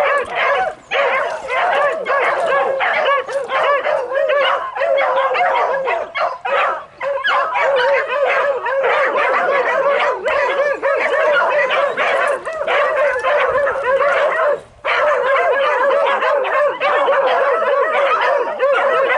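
A pack of beagles baying at a wild boar held at bay ("au ferme"), the stationary bay that signals the boar has stopped and is being held by the dogs. Many voices overlap almost without pause, broken by a few short lulls.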